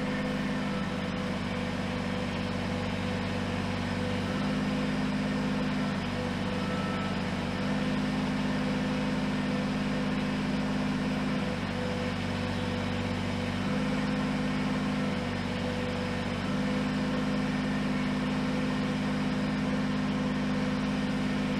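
Kubota BX23s compact tractor's three-cylinder diesel running steadily, its tone shifting every few seconds as the front loader raises and tilts a loaded pallet on pallet forks.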